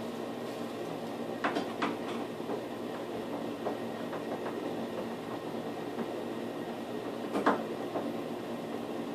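Light metallic clicks and taps from handling a vanity light's metal mounting bracket on the wall: two close together early on and a sharper one near the end, over a steady hum in the room.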